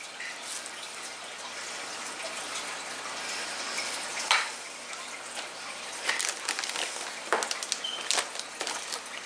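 Unboxing handling: a charger and its cords being taken out of their packaging, giving a few sharp clicks and crinkles over a steady hiss.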